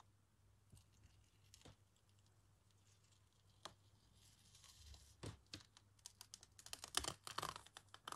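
A paper print being slowly peeled off a paint-covered gel printing plate: faint crackling clicks as the paper lifts away from the tacky paint. The clicks are sparse at first and grow denser and louder over the last few seconds.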